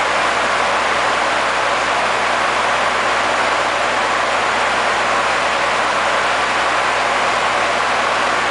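Steady cockpit noise of an ATR 42 turboprop airliner in flight: the unchanging drone of its engines and propellers under a rushing hiss of airflow.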